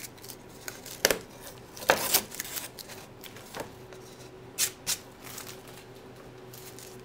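Hands lifting and setting down a plexiglass router template on the wing: a handful of sharp clicks and short scrapes, clustered in the first five seconds, over a faint steady hum.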